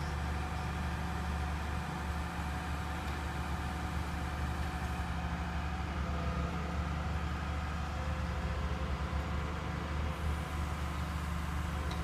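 Mobile crane's diesel engine running steadily under the lift, a low, even drone.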